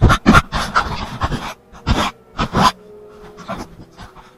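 A person panting hard in loud, uneven gasps while straining to shove a boulder.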